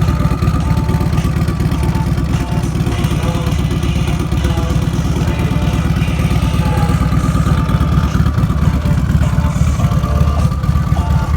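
Turbocharged Harley-Davidson Street Glide V-twin engine running steadily, a steady turbo whistle over the low engine pulses.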